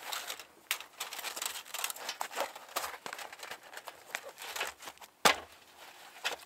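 Fabric pouch rustling and scraping as the folded titanium hobo stove is slid into it and the flap is pressed shut, with one sharp knock about five seconds in.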